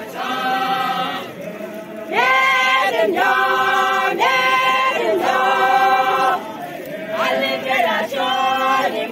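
A group of women singing a traditional Yimkhiung Naga song together, unaccompanied. The song moves in short held phrases about a second long, each sliding in pitch where it starts and ends, with a longer breath pause a little past the middle.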